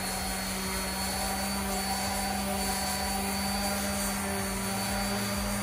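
Electric sander with 100-grit paper running steadily, sanding down a fire-damaged surface, with a constant hum and a faint high whine.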